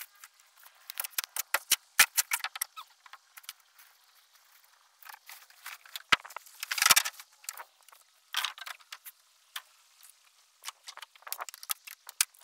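Irregular scraping, crunching and clicking of hand work digging foam and rotten wood out from around a boat's stringer, with a louder scrape a little past the middle.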